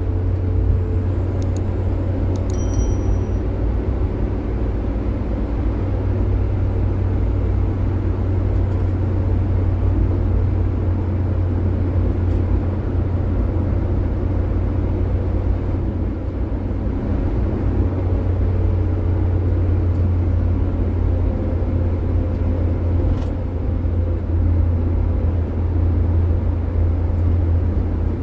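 Inside the cab of a Daihatsu Gran Max van cruising on a highway: a steady low drone of engine and road noise, with no change in speed or gear.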